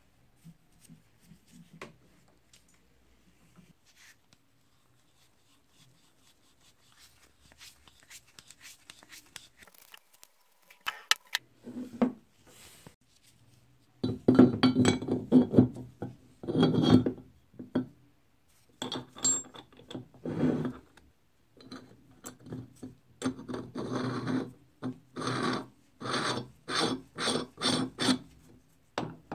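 Metal parts of a hand-cranked meat grinder being fitted together: faint handling at first, then from about halfway, loud metal-on-metal scraping and rubbing as the feed screw is worked into the grinder's barrel. Near the end comes a quick run of strokes, about two a second, as the perforated cutting plate goes on.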